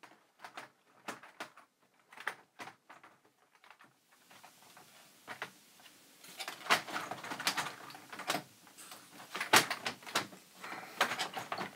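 Plastic clicks and knocks of a computer keyboard and its plastic top case being handled and fitted: light, scattered clicks at first, then louder, denser clattering from about six seconds in as the upper case is lowered on.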